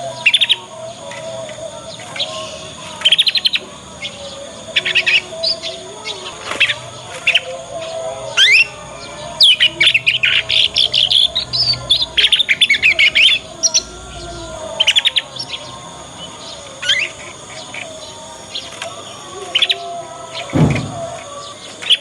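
Young canary twittering its practice song in short bursts of chirps and trills, with a dense run of rapid chirps about halfway through. A low thump near the end.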